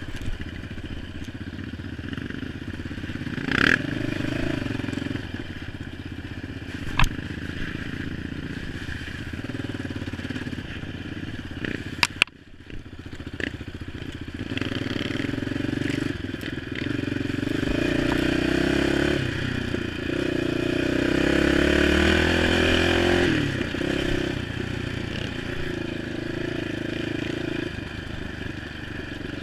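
ATV engine running as it is ridden over a rough dirt trail, with the chassis clattering and a few sharp knocks over bumps. The engine drops off briefly about twelve seconds in, then its pitch climbs as it is revved up before easing back.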